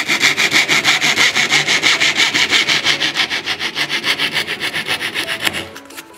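A dovetail saw cuts off the waste just above the shoulder line of a thin drawer-side board. It makes a steady rasping of quick, even strokes that dies away shortly before the end.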